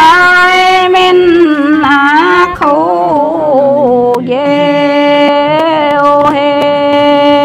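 Two women singing a Dao folk song in unison without accompaniment, in long held notes that bend slowly up and down. After a short break a few seconds in, the phrase settles into one long, steady held note.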